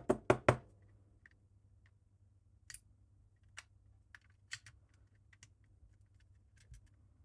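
Plastic brick puzzle box knocking and clicking as it is handled and a tool piece is pushed into it: three quick knocks at the very start, then light scattered clicks.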